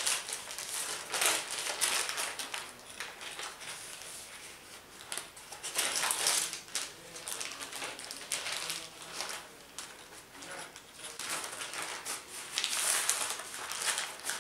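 Baking paper rustling and crinkling in irregular bursts as hands pull it over and press it around a cream-filled sponge cake roll.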